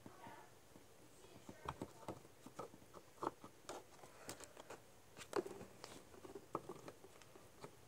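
Faint, irregular clicks and taps of handling as a power plug is tried against a socket that it will not go into.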